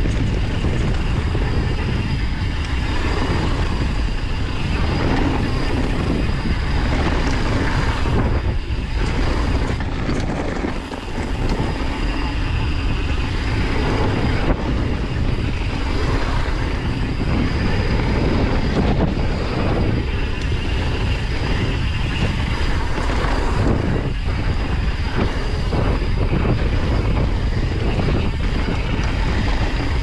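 YT mountain bike riding fast down a dirt trail: a steady rush of tyre and wind noise, with the chain and frame rattling and knocking over bumps.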